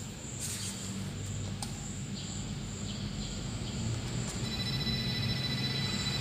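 Cardboard pages and a lift-the-flap piece of a children's board book being handled: a page turned about half a second in, a few light clicks, and the flap lifted. Faint, thin, steady high tones come in about two-thirds of the way through.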